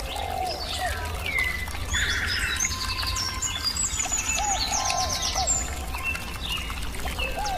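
Birdsong: several small birds chirping and trilling over one another, with a lower, arching call repeating every three to four seconds, over a steady low rumble.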